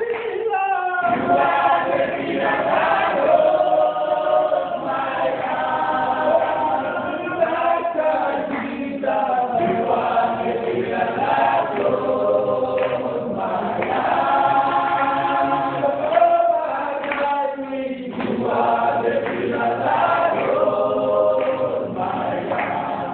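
A choir singing a worship song together in harmony, in phrases of a few seconds with short breaks between them.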